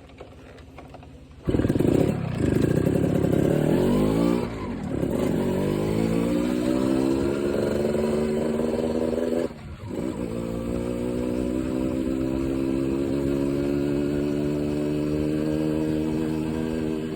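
Suzuki Tornado two-stroke motorcycle engine starting about a second and a half in, revving up once, then running at a fast idle while warming up, its pitch slowly creeping higher. About halfway it dips briefly, then picks up and runs steadily again.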